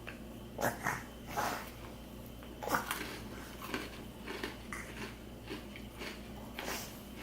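Biting and chewing a crunchy Oreo sandwich cookie: a string of short, irregular crunches.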